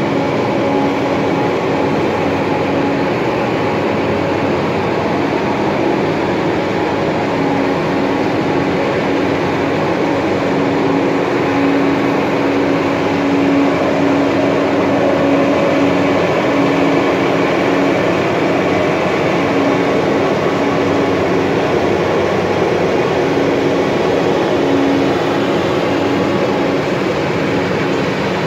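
Farm tractor engine running with its towed sprayer working: a steady, dense noise with a constant hum, slightly louder about midway as the tractor comes nearer.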